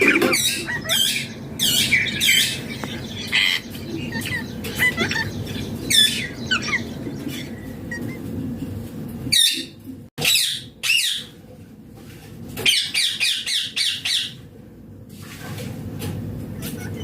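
Green ringneck (rose-ringed) parakeet giving repeated sharp, high squawks in short bouts, with a quick chattering run of calls about two thirds of the way in.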